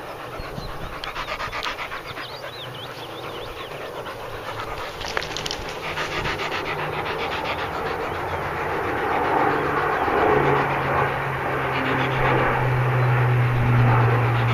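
Drone of a Lockheed Hercules's four turboprop engines and propellers, a steady low hum growing louder as the low-flying plane approaches.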